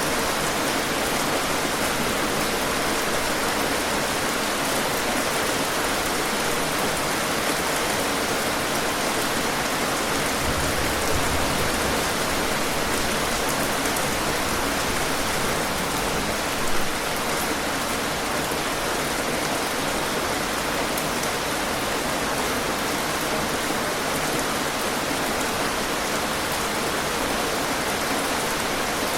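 Steady heavy rain falling, a dense even hiss of drops with a couple of slightly louder spatters about 11 and 17 seconds in.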